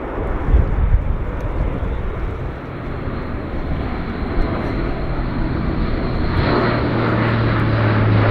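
Airbus A400M's four Europrop TP400 turboprop engines with eight-bladed propellers, passing close overhead in a banking display pass. A steady low propeller hum comes in about five seconds in, and the sound grows louder toward the end.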